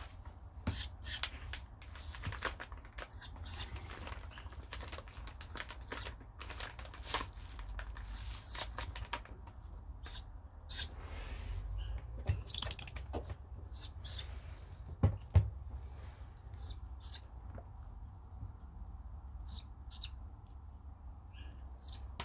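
Snowy owl chicks giving short, high-pitched begging calls at irregular intervals, with two sharp knocks about fifteen seconds in.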